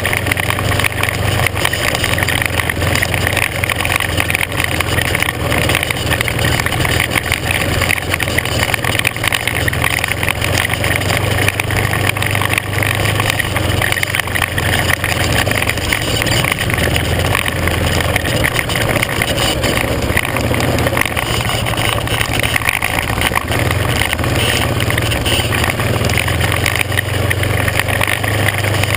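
Off-road vehicle engine running steadily while riding a rocky dirt trail, with a constant clatter from the rough ground.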